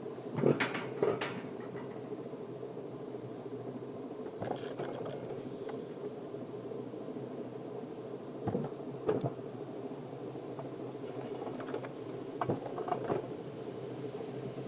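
Wiegand alpine coaster sled being hauled up the lift section of its tubular rail track: a steady mechanical hum with clusters of clacks and rattles, once about half a second in, again around the middle, and again near the end.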